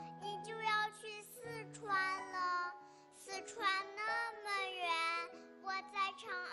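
A child singing over instrumental backing music.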